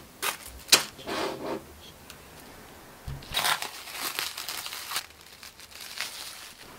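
Aluminium-foil ring moulds crinkling and tapping as they are set down on a parchment-lined baking tray. After a thump about three seconds in, plastic cling film crinkles as it is peeled off a glass bowl.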